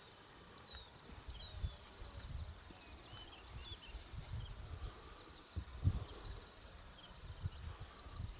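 Bush ambience of birds calling and insects trilling: short high falling whistles and rapid chirring trills, with irregular low rumbling thumps on the microphone, the strongest about six seconds in.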